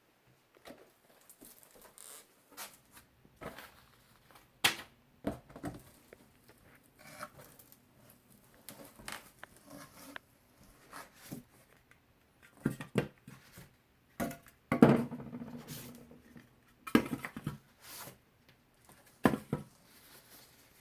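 Packaging being handled during an unboxing: irregular rustling, crinkling and tearing with scattered knocks, busiest and loudest about fifteen seconds in.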